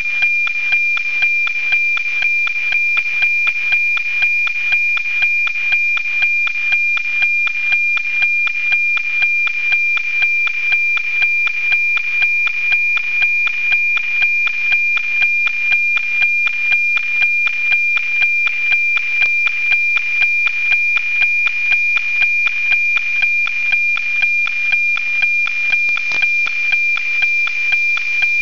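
NOAA 19 weather satellite's APT image signal, picked up by a software-defined radio and FM-demodulated to audio. It is a steady high-pitched tone with a tick-tock rhythm of about two beats a second, the line-sync pulses of the image being sent, over a light hiss of reception noise.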